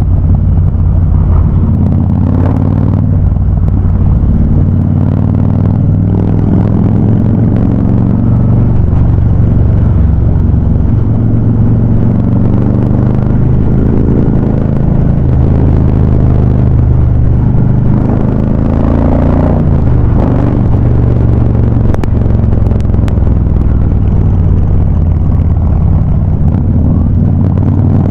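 Harley-Davidson Ultra Classic V-twin engines running through Vance & Hines High Output exhausts while riding: a loud, steady, deep rumble that swells and eases a little with the throttle.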